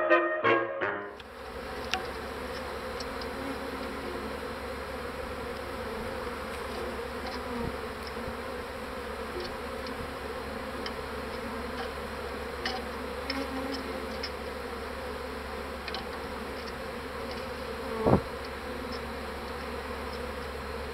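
Honeybees buzzing steadily at a busy hive entrance, many bees flying in and out, after the last second of brass music fades. About 18 seconds in there is one brief, louder burst.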